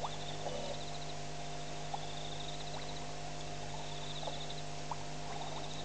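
Night chorus: a high, pulsed trill repeating about every one and a half to two seconds over a steady hum, with a few short sharp clicks scattered through.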